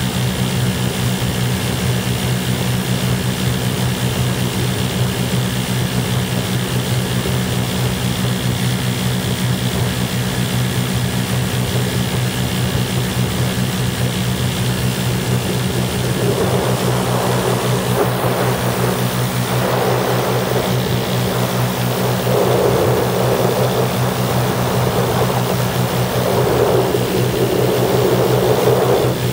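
Lazair twin-engine ultralight in cruise, its engines and propellers droning steadily as heard from the open cockpit. In the second half, surges of rushing wind noise come and go four times over the engine drone.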